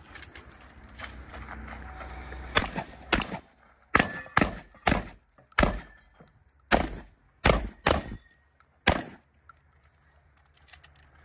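Canik Rival-S 9mm pistol firing about ten shots over some six seconds, singly and in quick pairs half a second to a second apart, each a sharp crack, after a couple of seconds of low rustling.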